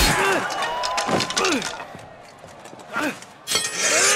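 Duel sound effects: a sharp weapon strike right at the start, then short effortful grunts and cries from the fighters, with a burst of noise near the end.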